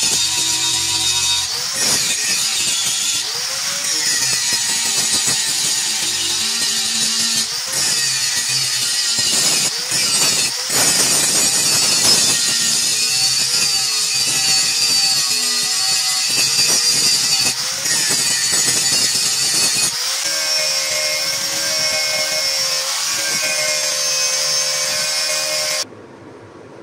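A power grinder grinding a steel machete blade: a loud, harsh noise with a high whine that wavers up and down. It cuts off suddenly near the end, leaving a quiet steady hiss.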